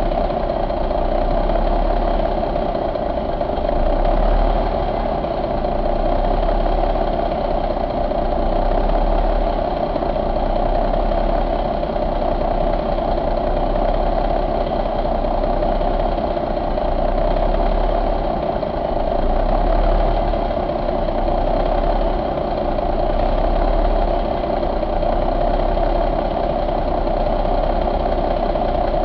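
1989 Cummins Big Cam IV 88NT diesel engine, a turbocharged 855-cubic-inch inline six, idling steadily.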